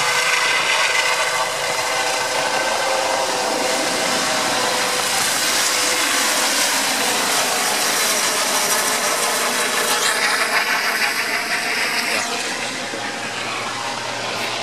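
Eurocopter EC135 air-ambulance helicopter lifting off and climbing away: loud, steady rotor and turbine noise with a steady whine. It turns hissier for a couple of seconds about ten seconds in, then eases slightly.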